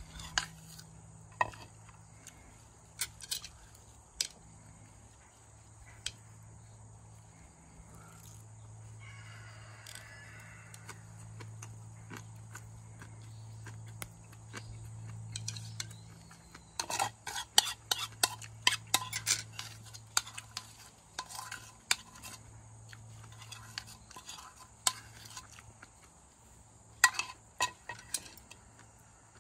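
Cutlery clinking and scraping against a dish while eating: scattered sharp clicks, with a dense flurry of clinks about two-thirds of the way through and a shorter one near the end.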